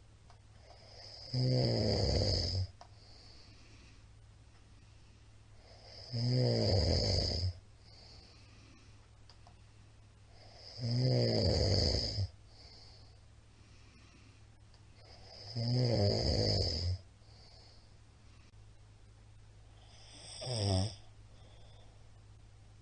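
A middle-aged man snoring loudly in his sleep: five snores about every four and a half seconds, each lasting a little over a second, with the last one shorter.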